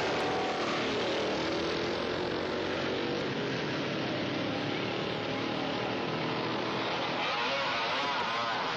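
Vintage racing motorcycle engines passing at speed and fading away along the straight. Near the end the next bikes approach, their engine pitch rising and falling as the riders work the throttle.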